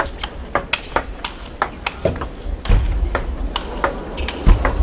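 A fast table tennis rally: sharp clicks of the ball striking the bats and bouncing on the table, two or three a second. Two dull low thumps come through, the louder one near the end.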